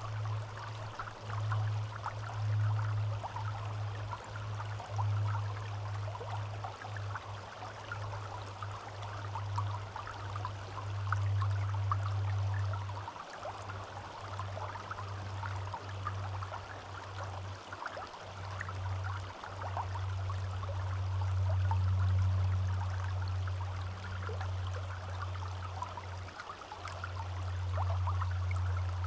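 Forest stream running and trickling steadily, with a loud low rumble underneath that comes and goes, dropping out briefly several times.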